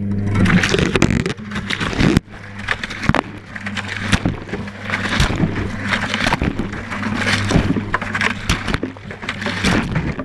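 Whirlpool Indiana 1400 washing machine heard from inside its drum: the motor hums steadily as the drum turns, with wet laundry and the camera tumbling and knocking against the drum. The hum and tumbling die away near the end.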